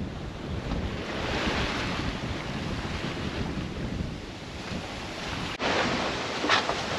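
Seawater rushing and splashing alongside a sailboat under sail in a rolling sea, with wind buffeting the microphone. The rush swells a second or two in, and sharper splashes come near the end after an abrupt break.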